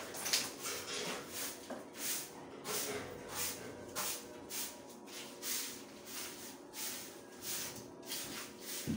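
Rhythmic rasping strokes on a wooden stair tread, about two a second, with a low thump near the end.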